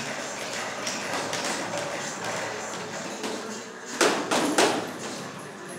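Boxing gloves punching hanging heavy bags: a run of thuds and slaps, with the two hardest blows landing about four seconds in, half a second apart.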